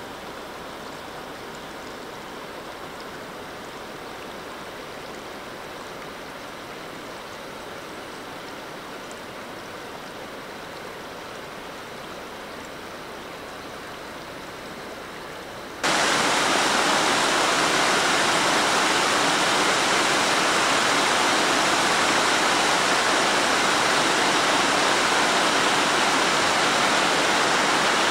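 Shallow river water running over stones, a steady rush. About sixteen seconds in it cuts abruptly to a much louder, fuller rush of water spilling over a low ledge.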